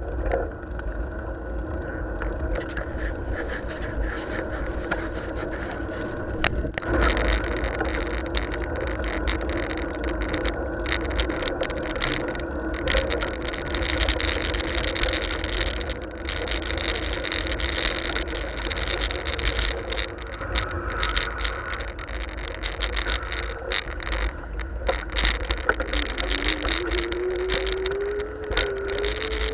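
Riding noise from a bicycle-mounted camera: a steady deep wind rumble on the microphone and a rattle of clicks as the bike rolls over the road and pavement, with passing cars. A note rises in pitch near the end.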